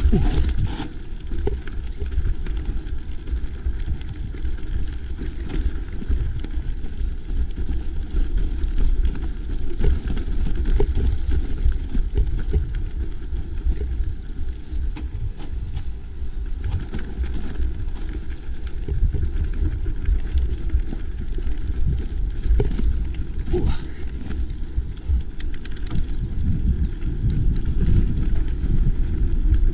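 Mountain bike riding over a rough, steep dirt track: tyres on stones and the bike rattling, with scattered clicks and knocks over a steady low rumble.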